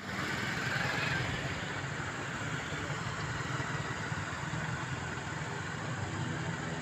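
Steady traffic noise from vehicles running on the road around a roundabout, a constant low hum with no single event standing out.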